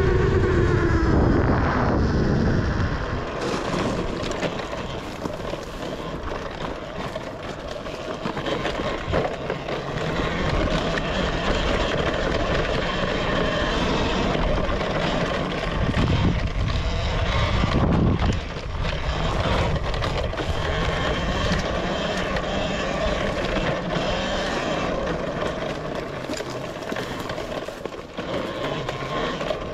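Talaria Sting electric dirt bike with a K.O 35 kW motor, its motor whine falling as the bike slows over the first couple of seconds. Then it keeps riding with a faint steady whine under a rush of wind on the microphone. A low surge and a rising whine come about two-thirds of the way through as it speeds up again.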